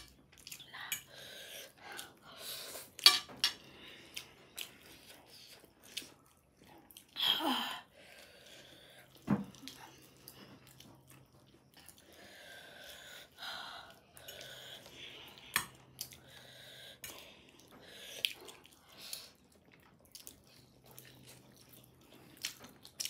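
People eating chicken wings and noodles: quiet chewing, with scattered sharp clicks and clinks of tableware and a few short, breathy bursts.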